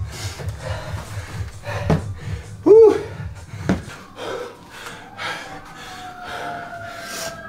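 A boxer panting hard to catch his breath after a hard round, with one short vocal grunt about three seconds in.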